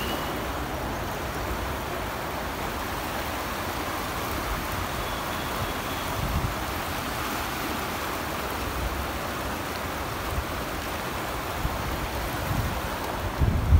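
River rapids rushing over rocks: a steady wash of water noise. Twice a low rumble of wind on the microphone rises through it.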